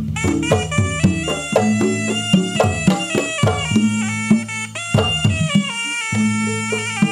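Sundanese pencak silat accompaniment (kendang penca): a reedy terompet shawm playing a wavering melody over beats from kendang hand drums.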